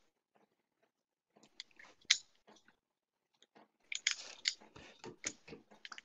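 Irregular soft clicks and short crunching noises, sparse at first and thicker near the end.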